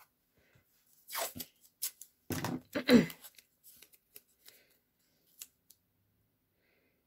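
Masking tape being pulled off the roll and torn, a few short noisy pulls between about one and three seconds in, the loudest near three seconds. A few light taps and rustles follow as the tape is pressed down on the plastic sheet.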